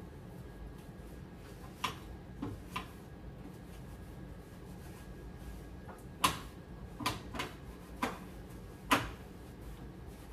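Scattered short knocks and clinks of kitchen items being handled and set down while a stovetop is wiped, about eight in all, the sharpest around six and nine seconds in.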